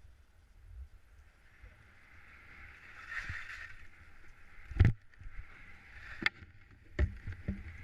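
Skis hissing and scraping over snow, with several sharp knocks about five, six and seven seconds in, the first the loudest.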